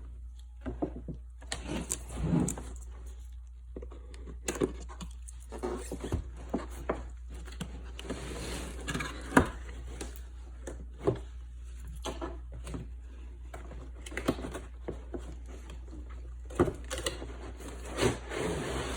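Cardboard toy-set box being handled and opened by hand: scattered taps, knocks, scrapes and rustles at irregular intervals, over a steady low hum.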